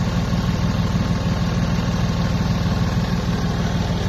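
Webasto Thermo Top V fuel-burning parking heater running after its service, its exhaust giving a steady, fast-pulsing drone.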